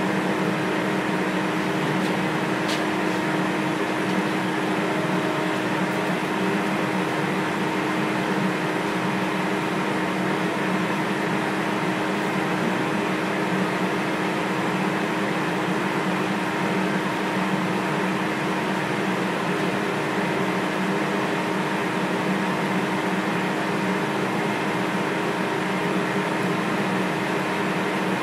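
TIG welding arc from a Parweld XTM 221Di inverter burning steadily on 2 mm plate: an even hiss with a low hum under it.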